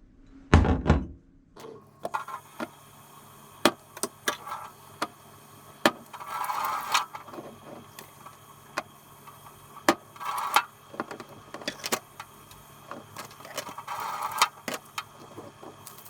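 Kitchen work with utensils: a heavy thump, then scattered knocks and clicks, three short rushing noises a few seconds apart, and a steady low hum from about two seconds in.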